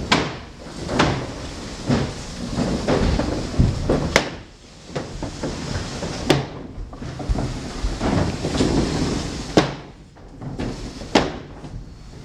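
A door closing again and again: about six sharp knocks spread out, with low rattling and rumbling in between.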